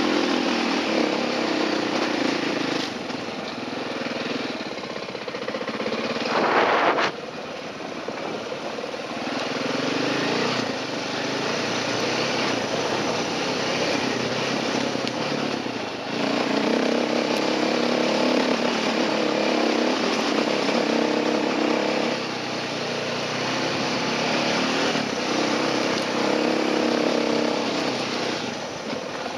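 Enduro dirt bike's engine running hard over a rough trail, its pitch rising and falling with the throttle. About six seconds in it revs up sharply, then cuts off suddenly before pulling again.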